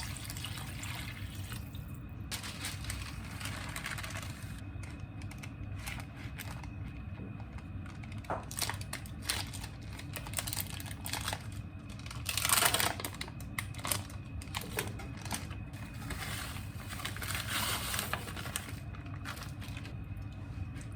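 Kitchen handling sounds: scattered clicks and rustles over a steady low hum, with one short, louder wash of water-like noise about halfway through.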